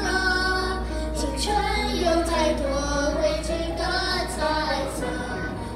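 A small group of children singing a song together into microphones, with musical accompaniment.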